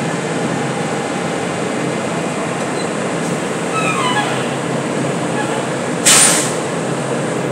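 Dump truck's diesel engine running as the truck rolls slowly forward, with a short, loud hiss of air about six seconds in from its air brakes.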